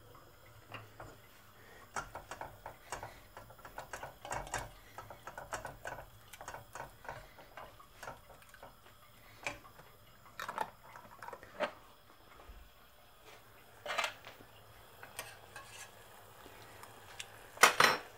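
A utensil clinking and scraping against a stainless steel saucepan as cranberry sauce is stirred on the hob. The small knocks are irregular, with louder clinks about ten and fourteen seconds in and the loudest just before the end.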